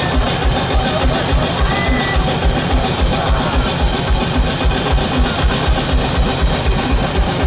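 Two drum kits played together live: a driving kick drum at about four beats a second under a wash of cymbals and drums.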